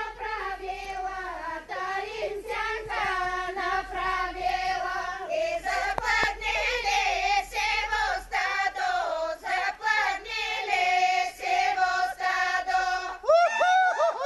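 Bulgarian village folk singers, mostly women, singing a folk song a cappella in sustained, wavering voices, the song for the horo they are dancing. Near the end a loud voice glides up and then down.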